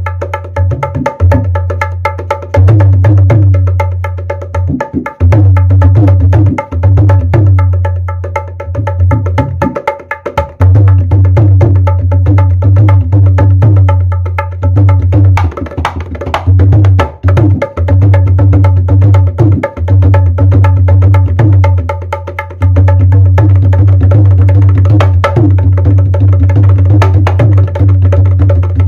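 Dholak played solo in a fast dhamaal rhythm: rapid hand strokes on both heads over a deep, booming bass, easing off briefly a few times between phrases.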